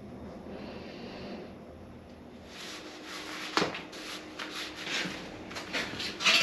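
Room hiss, then from about halfway a quick run of short knocks and scuffs, two or three a second, with one louder thud among them.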